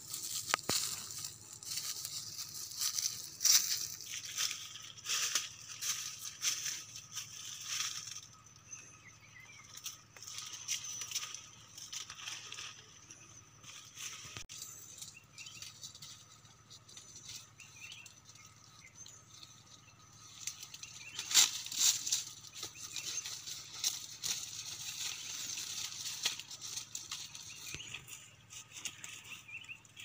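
Dry leaf litter and brush rustling and crackling in irregular bursts as someone moves through it and works at the ground by hand. The louder crackles come around three to four seconds in and again a little past twenty seconds.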